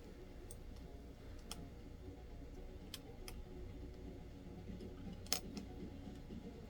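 Faint, scattered light clicks of a small screwdriver and tiny screw against a laptop's metal parts during reassembly, with one sharper click about five seconds in.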